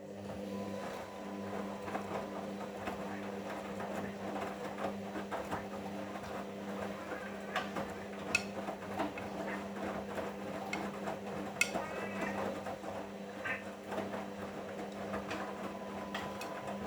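Hoover washing machine's motor turning the drum in the main wash: a steady hum with frequent light clicks and knocks from the tumbling load. It starts and stops abruptly, one tumbling stroke between pauses.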